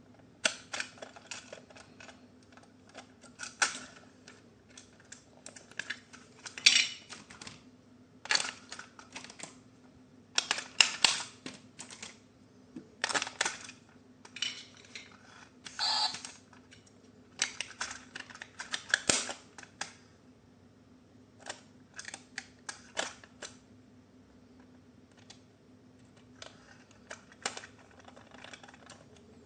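Packaging and plastic toy parts being handled during an unboxing: irregular clicks, taps and rustles in quick clusters, over a faint steady hum.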